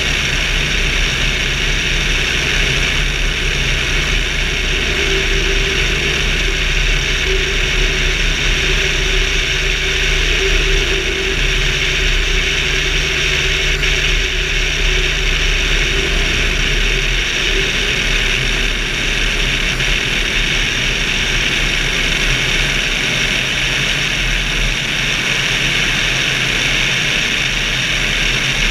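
Steady in-flight noise of a motorglider heard from a wing-mounted camera: rushing airflow over the wing with a constant low engine and propeller drone beneath it.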